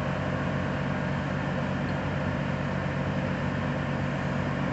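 An engine running steadily at idle, an even low drone with no change in speed.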